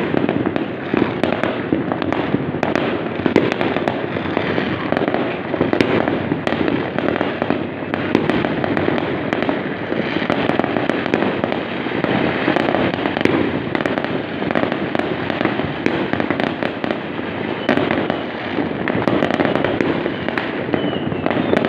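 Fireworks and firecrackers going off in a dense, unbroken crackle of rapid pops.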